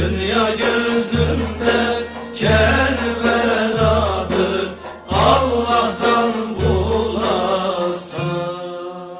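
Traditional Şanlıurfa sıra gecesi folk music: a man singing over instrumental accompaniment, with a deep drum stroke about once every second. The music fades out near the end.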